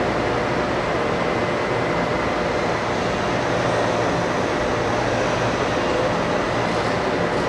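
Steady rushing noise with a faint constant hum, typical of a parked electric train's air-conditioning and auxiliary equipment running.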